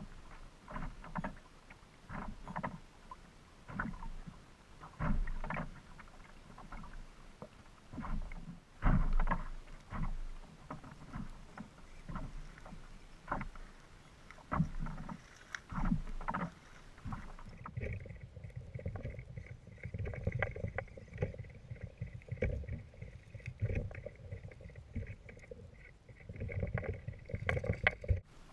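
Choppy lake water slapping and splashing against a fishing kayak's hull in irregular knocks and washes. About two-thirds of the way through the sound turns duller, losing its high hiss.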